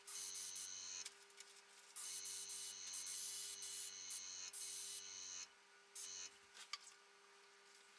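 Dual-action airbrush spraying in several bursts of hissing air, each a second or more long, over the steady hum of a small tankless compressor. The spraying stops near the end, leaving the compressor hum.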